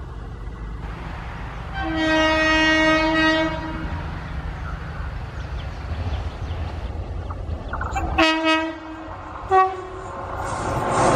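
WAP-7 electric locomotive's horn sounding over the rumble of the approaching train: one long blast about two seconds in, then a short blast and a very short toot near the end. Near the end the train's passing noise swells as it reaches the listener.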